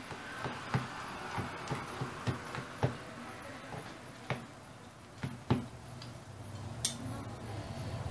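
Metal knife and fork clicking and scraping against a metal baking tray while cutting a piece from a baked börek: about a dozen irregular sharp clicks, a few louder ones in the middle.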